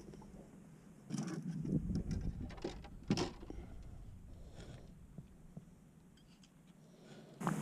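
Short knocks, clicks and rattles of hands working the outboard motor and gear aboard a plastic jon boat, a cluster of them in the first few seconds with one sharper knock, then quiet. A steady low rumble starts near the end.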